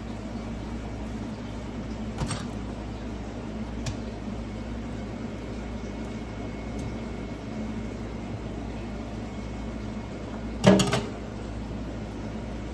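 Steady kitchen background hum with a couple of light clicks, then a brief loud clatter of hard objects about eleven seconds in, as a knife and cookware are handled while a plantain is peeled and cut.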